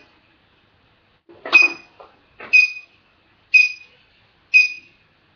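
Treadmill console beeping: five short, high beeps about a second apart.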